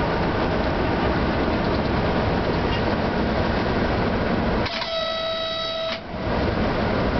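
Running noise of an FS E655 electric locomotive heard from the driving cab, with one steady horn blast lasting about a second, about five seconds in.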